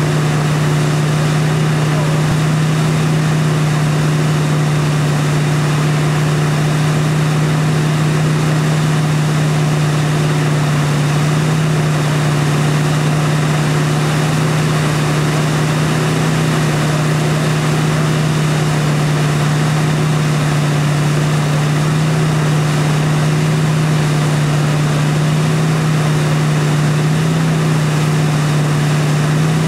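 Ski tow boat's engine running steadily at towing speed, a constant low drone, over an even rush of water.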